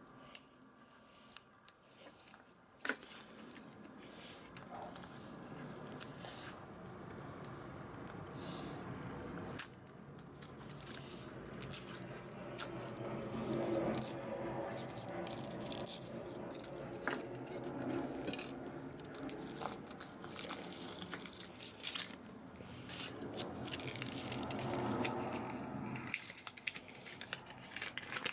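Foil wrapper of a Kinder Surprise chocolate egg crinkling and tearing as it is peeled off by hand, in quick irregular crackles. After a few quiet seconds with the odd click, the crackling builds up and goes on.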